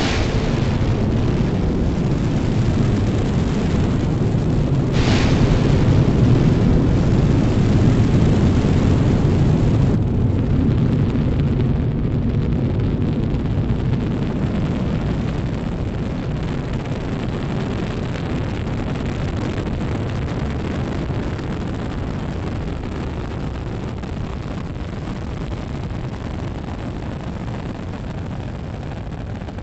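Space shuttle Atlantis launching: its main engines and solid rocket boosters make a deep, loud, continuous rocket rumble that starts abruptly, with a sharp crack about five seconds in. The rumble slowly fades as the shuttle climbs away.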